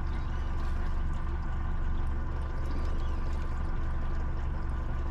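Small boat's outboard motor running steadily at trolling speed, an even low hum.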